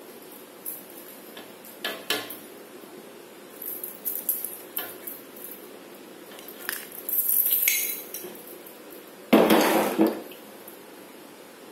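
Hard objects clinking and clattering in short bursts, a denser rattle about seven seconds in, then a louder rush of noise lasting about a second near the end.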